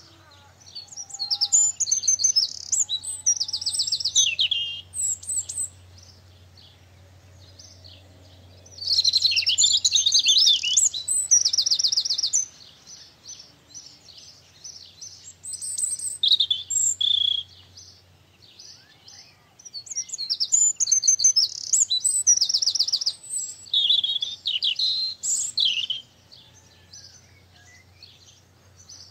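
Songbirds singing: loud phrases of fast, high trills and quick notes, each a few seconds long, coming again and again with short quieter gaps between them that hold scattered single calls.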